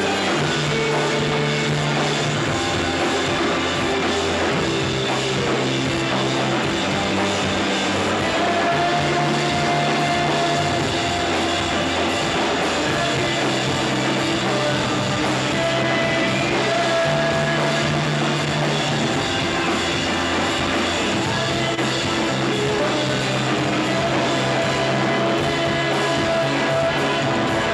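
Shoegaze rock band playing live: a dense wash of distorted electric guitars with drums, over bass notes that change about every two seconds.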